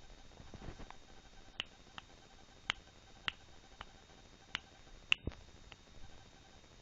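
A series of sharp, irregular clicks or taps, about eight over four seconds, with a soft low rustle near the start.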